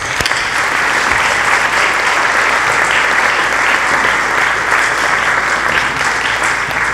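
Audience applauding, a steady dense clapping from a large crowd, with one sharp clap close to the microphone at the very start.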